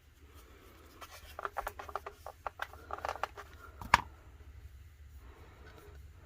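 Felt-edged squeegee rubbing a decal down onto an epoxy tumbler: a run of short, scratchy rubs, with one sharp click about four seconds in, over a low steady hum.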